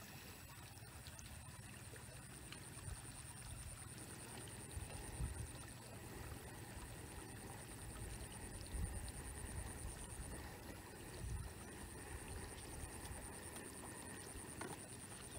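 Wind buffeting the microphone in irregular low rumbling gusts, strongest around the middle, over a faint steady high-pitched trill.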